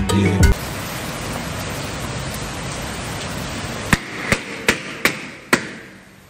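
A column of rubber balloons popping one after another as a kick bursts them: five sharp pops in quick succession over about a second and a half, over a steady background hiss. Upbeat music cuts off about half a second in.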